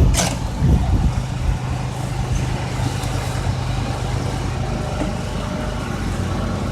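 A motor running steadily with an even low hum, and a short sharp click right at the start.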